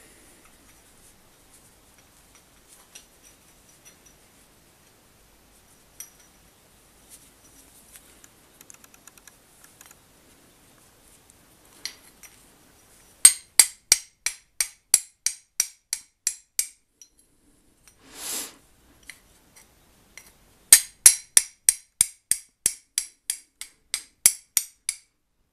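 A hand-forged steel fire striker struck against a flint, throwing sparks onto a cotton pad: two quick runs of sharp metallic clicks, about three strikes a second, the first beginning about halfway through. A short rush of noise falls between the two runs; before the strikes there is only faint handling.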